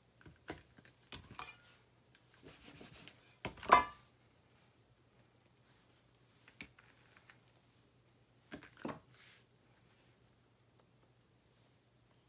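Hands rounding pieces of bread dough on a silicone baking mat: soft rubbing and light taps as the dough balls are shaped and set down. There is a sharper knock about three and a half seconds in, and a couple more near the end. A low steady hum runs underneath.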